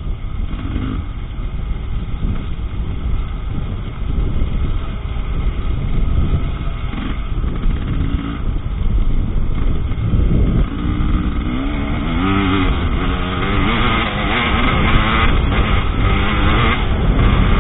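Husqvarna TE300 two-stroke enduro motorcycle riding a forest trail, its engine revving up and down with the throttle over a constant low rumble of wind and bumps on the onboard camera's microphone. The rising and falling revs are clearest in the second half, where the sound also gets a little louder.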